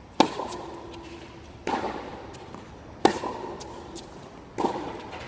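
Tennis balls struck by racquets in a baseline rally, four hits about a second and a half apart. The near player's shots are sharp and loud, the far player's softer, each trailing off with a short echo under the court's roof.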